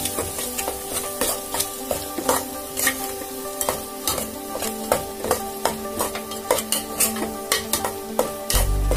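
Metal spatula scraping and knocking against the bottom and sides of an aluminium pot in repeated strokes as thick ground moong dal paste cooking in ghee and oil is stirred without a break, so it will not stick and catch on the bottom.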